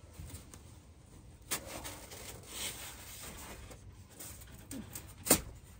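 Faint rustling and scattered knocks of hands working under a raised house, with one sharper knock about five seconds in.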